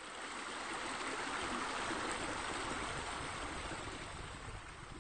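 Steady rush of running water, like a stream or a spilling water feature, fading in over the first second.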